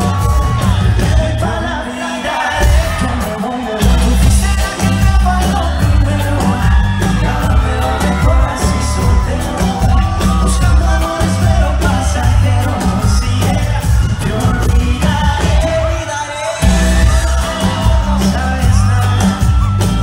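Live pop music heard from the crowd: a male singer over a loud, heavy bass beat through a concert PA. The bass drops out briefly about two seconds in and again about three-quarters of the way through.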